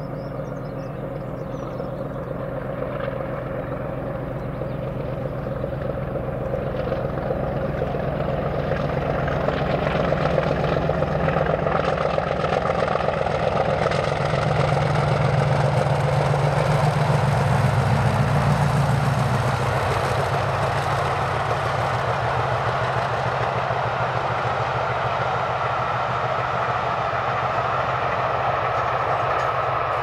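Two English Electric Class 50 diesel locomotives, with 16-cylinder engines, haul a passenger train up and past at speed. The engine rumble builds steadily and is loudest about 17 seconds in as the locomotives go by. The wheels of the following coaches then run on at a steady level.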